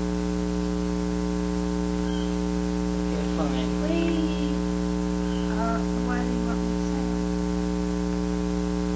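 Steady electrical mains hum on the recording, a constant low buzz made of many even tones that does not change.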